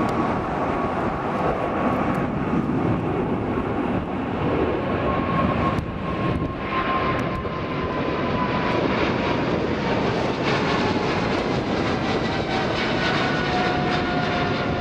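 Boeing 777-300ER's twin GE90-115B turbofans at climb-out power, a loud steady roar as the airliner passes overhead. Over the roar a whining tone slowly falls in pitch as the jet goes by and draws away.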